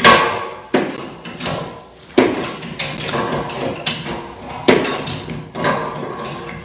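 Irregular metallic clanks and knocks, about seven sharp strikes with short ringing tails, as a wrench works the pipe connection of a steam radiator to take it off.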